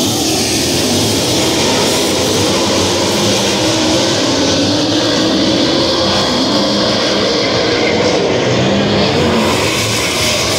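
Several winged sprint cars' 410 V8 engines running loud around a dirt oval, with the pitch of several engines rising and falling as they pass.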